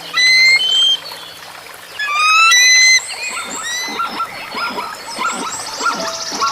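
High whistling animal calls: two loud groups of clear whistled notes, then a run of short quick chirps to the end.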